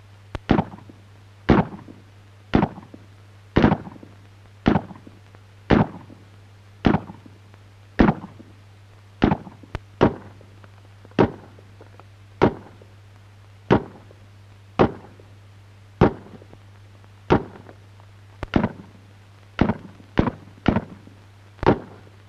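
Rifle shots from the FN self-loading rifle in steady rapid fire, roughly one sharp crack a second, a few coming in quick pairs, about twenty in all, each with a short echoing tail.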